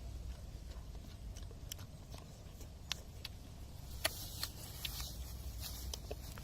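Eating sounds: bites and chewing of cooked fish, with scattered small clicks and crunches and a brief louder crunch about four seconds in.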